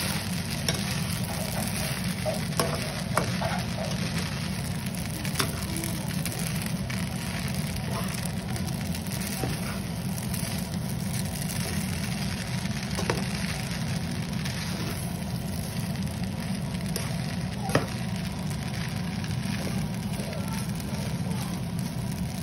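Bihon rice noodles and vegetables sizzling in a nonstick frying pan as a spatula tosses and scrapes them, with scattered sharp clicks of the spatula against the pan over a steady low hum.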